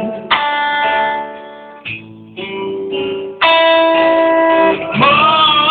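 Live blues band playing a slow blues, with a guitar playing long held notes between the sung lines. A voice comes back in near the end.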